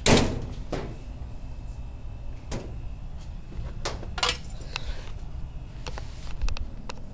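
Rummaging through a cupboard: a loud knock as something is opened or set down at the start, then scattered clicks and clatter as items are moved about.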